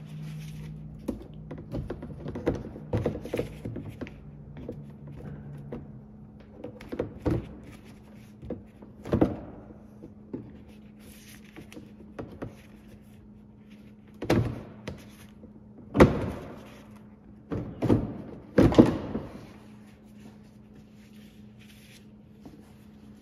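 Plastic skid plate panels under a Yamaha YXZ1000R being pushed, flexed and knocked into their overlapping fit by hand: a series of irregular thunks and knocks, with several louder ones in the second half.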